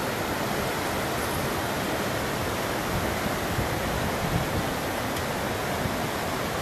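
River rapids rushing: a steady, even roar of moving water.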